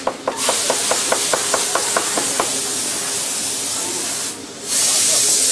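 A loud, steady hiss that cuts out for about half a second around four seconds in and then starts again. A quick run of regular ticks, about six a second, sounds over it during the first half.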